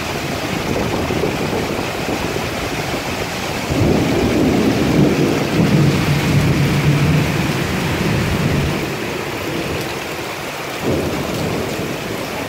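Torrential rain and strong wind of a rainstorm, with a deep rumble that swells about four seconds in and dies away again a few seconds later.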